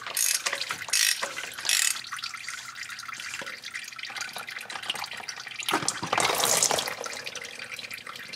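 A socket ratchet clicks in three strokes in the first two seconds as it loosens the cap of an oil filter housing. Under it runs a steady hiss of engine oil draining into a pan. Near the end a louder hiss lasts about a second.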